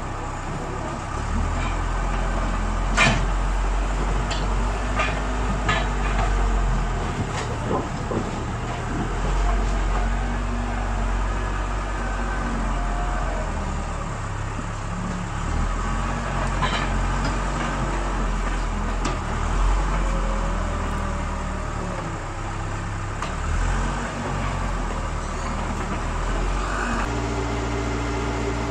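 Huina radio-controlled model excavator's electric motors running as its boom and bucket move, the drone shifting in pitch every second or two, with a few sharp clicks and knocks.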